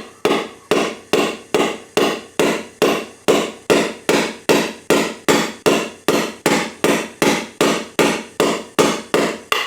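Steady hammer tapping, about three strikes a second, each with a short metallic ring, on a tool set over a valve spring retainer of a 2.8L V6 to break the retainer loose from its valve keepers.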